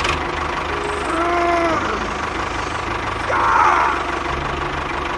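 Tractor engine running steadily with a low knocking beat. A short rising-then-falling squeal comes about a second in, and a brief louder rasp comes about three and a half seconds in.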